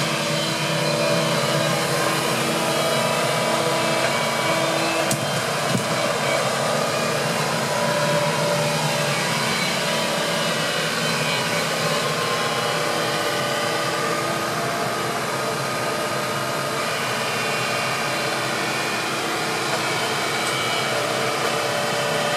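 Hitachi Zaxis tracked excavator running steadily as it works its arm at the dam wall, with a sharp knock about five seconds in.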